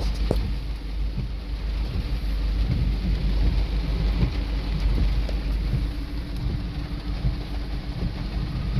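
Steady heavy rain with a low rumble of vehicles on a flooded road under it.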